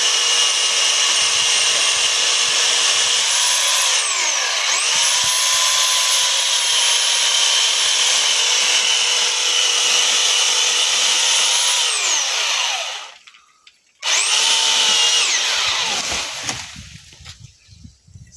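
Black & Decker PS7525 electric pole saw running at full speed with a high-pitched whine as its chain cuts into a fallen tree trunk. The motor briefly slows and picks up again about four seconds in, then winds down after about twelve seconds. It is squeezed on again for about a second and winds down once more.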